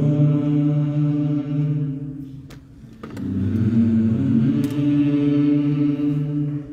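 Voices singing a slow liturgical chant, in two long, held phrases with a short pause for breath about two and a half seconds in.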